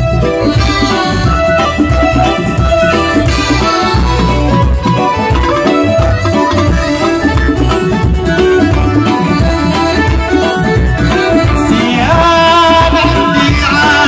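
Live band music, loud: an electronic keyboard plays the lead melody with an accordion-like tone over a hand-drum rhythm and bass. A male singer's voice comes in about twelve seconds in.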